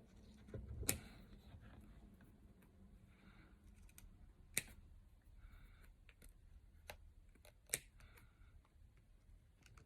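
Scissors snipping the ends of a ribbon: a handful of short, sharp snips spaced seconds apart, the loudest about a second in.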